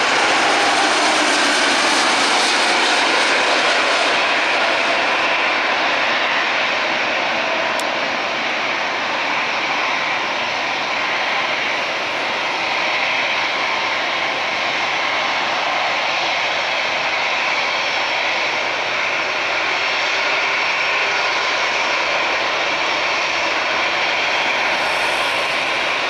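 Airbus A330-243 airliner landing: the steady, loud noise of its Rolls-Royce Trent 772B turbofans on final approach, through touchdown and the rollout along the runway.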